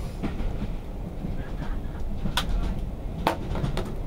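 Steady low rumble of a moving railway carriage on the Jacobite steam train, with two sharp clicks in the second half.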